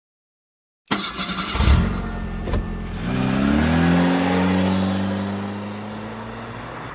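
Motor vehicle engine sound effect: an engine starts about a second in, revs up with a rising pitch around three seconds in, then runs at a steady pitch, slowly getting quieter.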